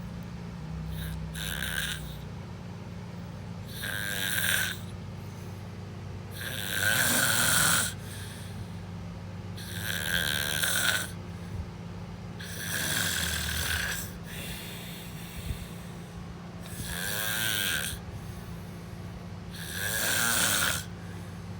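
A sleeper snoring: about seven snores, roughly three seconds apart, each lasting about a second, with a steady low hum underneath.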